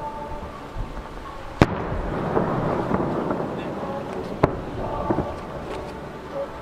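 Aerial firework shells bursting at a distance over a lake: two sharp bangs, about a second and a half in and again near four and a half seconds, over a low rumble.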